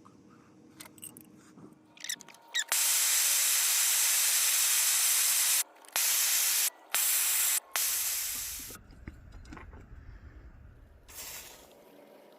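Aerosol spray can spraying: one long hissing burst of about three seconds, then three short bursts, with light handling clicks before and after.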